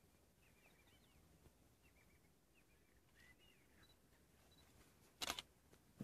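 Near silence with faint high chirping, then a brief cluster of sharp clicks about five seconds in: a camera shutter firing in quick succession.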